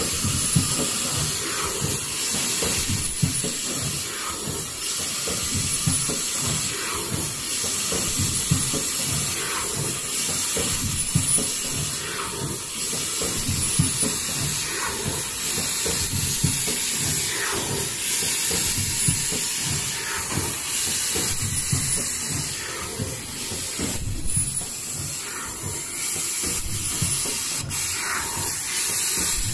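Automatic KN95 mask production line running: a steady rush of machine noise, with a faint repeating stroke about every two and a half seconds.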